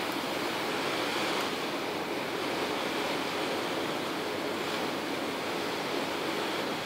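Steady rushing noise of wind and water passing a moving vessel: an even, unbroken wash.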